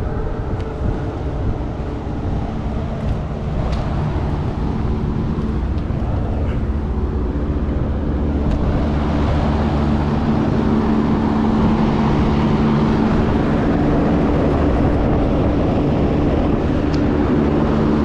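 Rooftop commercial condensing unit running: a steady mechanical hum with the rush of its fan, growing louder about halfway through as the unit is approached. The condenser fan is running but not spinning hard enough, which the technician takes as the most likely fault on this unit.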